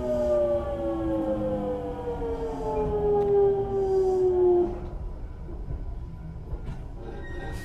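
Toshiba GTO-VVVF inverter of a Hankyu 8000 series train whining, heard from inside the car, with a stack of tones falling steadily in pitch as the train brakes into a station. The whine cuts out about two-thirds of the way through, leaving a low running rumble. Near the end a click is heard and a steady high tone begins.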